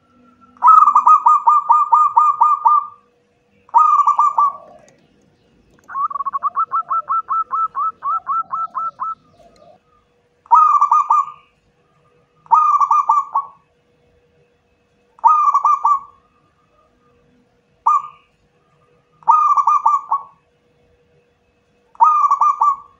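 Zebra dove (perkutut) cooing in its rolling song: about nine short phrases of rapid staccato coos with pauses between them. The phrase about six seconds in is longer, a run of evenly spaced notes lasting around three seconds.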